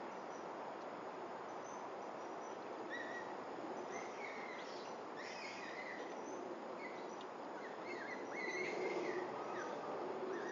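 Steady outdoor background hiss, with short bird chirps starting a few seconds in and coming more often near the end.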